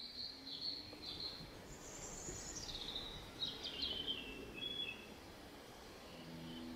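A wild songbird singing over a soft outdoor hiss: a few short high chirps, then a run of notes falling in pitch. Gentle music comes in near the end.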